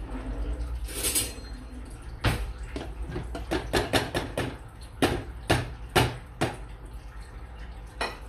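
Metal spoon knocking and scraping against a bowl of mashed potato while scooping it out: a quick run of about a dozen sharp clinks over four seconds, then one more near the end.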